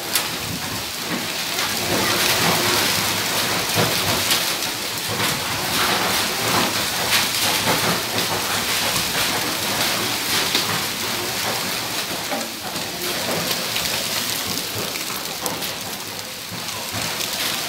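Heavy rain mixed with hail pelting the ground: a loud, steady hiss thick with countless small ticks of stones striking.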